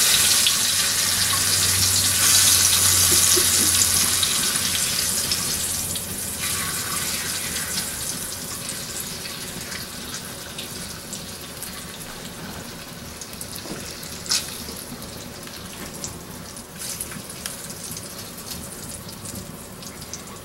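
Pork grease sizzling in a cast-iron skillet on a hearth: a steady hiss that is loudest for the first few seconds and then slowly dies down, with a few sharp pops or crackles.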